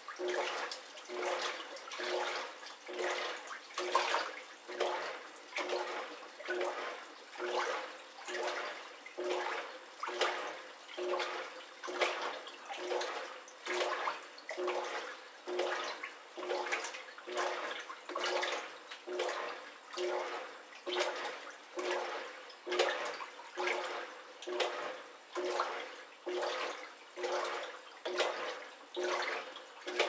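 Top-loading washing machine agitating its wash: water sloshing and churning in regular surges, about one every 0.7 s, each with a short burst of motor hum. The back-and-forth rhythm is heard as the machine shouting 'obahan! obahan!'.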